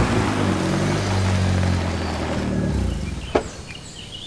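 A car driving, its engine and road noise fading away over about three seconds, followed by a single sharp click.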